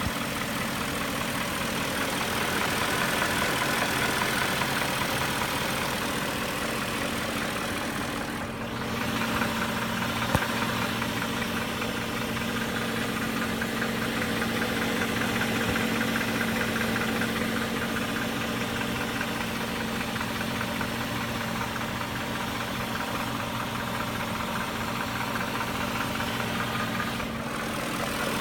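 2001 BMW 540i's 4.4-litre M62TU V8 engine running steadily with a diesel-like knock and rattle. The owner hears two sounds in it: a VANOS rattle and a separate clack of unknown cause. One sharp click stands out about ten seconds in.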